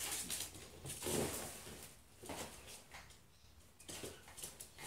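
Rustling of a fabric pet play tunnel as a miniature schnauzer puppy noses and paws at it, in short scuffling bursts every second or so.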